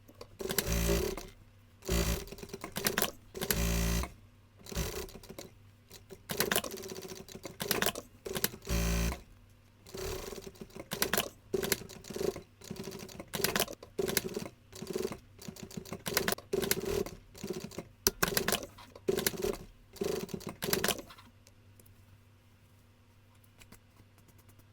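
Sewing machine running in many short stop-start spurts, under a second each, with a few heavier thuds among them; it stops about three-quarters of the way through.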